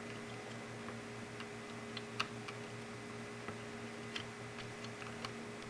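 Faint, irregular small clicks from an Arduino Nano clone board being pressed and wiggled down onto its header pins in a solderless breadboard, over a steady low hum.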